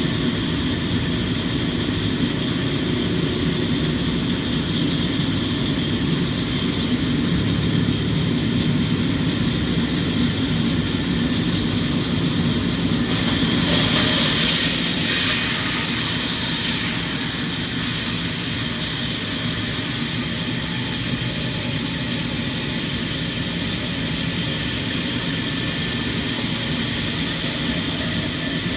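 Sawmill machinery running steadily, with a louder, hissing stretch about halfway through that lasts a few seconds, as the saw cuts through the neem log.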